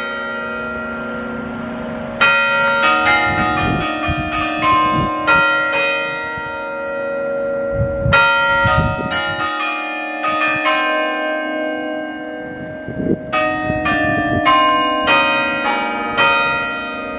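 Newly installed church tower bells rung automatically by a programmed remote-control system: several bells of different pitches struck in quick runs, each note ringing on. Runs start about two seconds in, around eight seconds and about thirteen seconds in.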